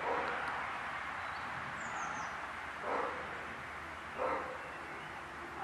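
Young Caucasian shepherd dogs at play giving short barks, one near the start and two more at about three and four seconds in, over steady outdoor background noise.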